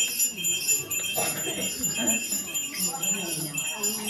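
Small bells jingling, shaken in a steady rhythm a few times a second, with low voices underneath.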